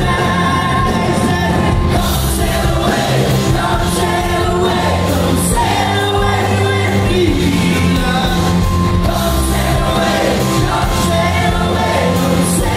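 Live band playing a song with singing and electric bass, heard from within the crowd in a large concert hall.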